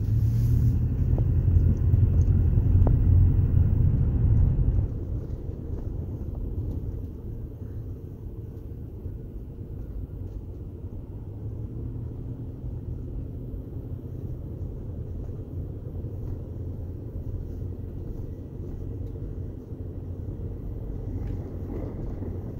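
Car driving, heard from inside the cabin: a low engine and road rumble, louder for the first five seconds or so, then settling to a quieter steady drone.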